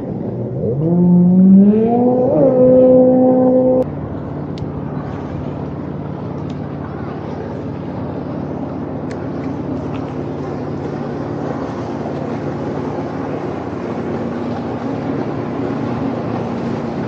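Jet ski engine revving up, its pitch climbing for about three seconds before cutting off suddenly; after that, a steady rushing noise with a faint low hum.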